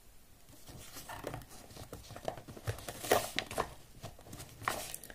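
Faint handling noise: scattered light rustles and clicks, with a short cluster about three seconds in.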